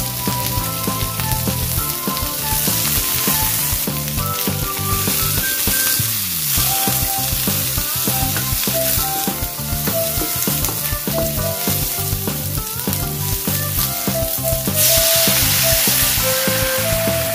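Chopped vegetables sizzling in a hot wok while a wooden spatula stirs and scrapes them, over light background music. About fifteen seconds in, a sauce is poured into the wok and the sizzle gets louder.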